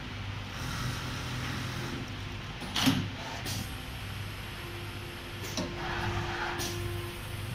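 Automated single-needle lockstitch CNC pattern sewing machine running with a steady hum as its drive moves the PVC template under the needle. A sharp click comes about three seconds in, with a few lighter clicks later.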